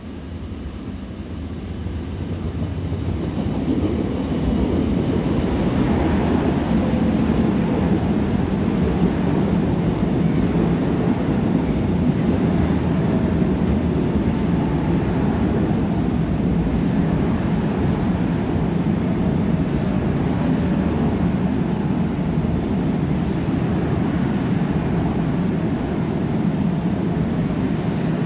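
Seoul Subway Line 1 electric train running along the platform behind the screen doors. Its rumble builds over the first few seconds as it comes in, then holds steady, with a few faint high squeals from the wheels in the last several seconds.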